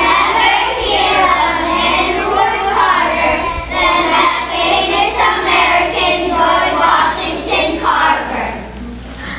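A chorus of young children's voices in unison: a second-grade class performing a poem together.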